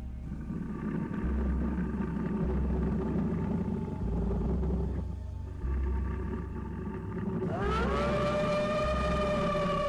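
Electronic background music: a pulsing low bass under held synth tones, with a rising gliding synth note about three-quarters of the way in that settles into a sustained chord.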